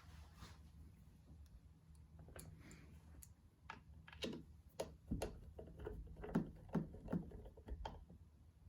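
Irregular small clicks and taps of a hand tool on a screw and plastic trim as a screw is fitted to the roof rail cover, growing busier in the second half.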